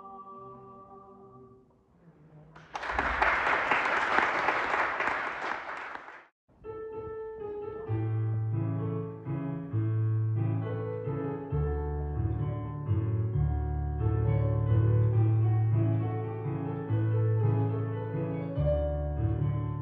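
The vocal quartet's held final chord fades out, then audience applause for about three and a half seconds, cut off abruptly. After a brief gap a piano plays an instrumental introduction with a steady bass line.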